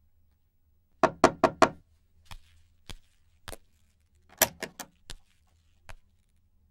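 Four quick knocks on a wooden door about a second in, then a few single footsteps and a rattle of clicks from the handle and latch as the door is opened.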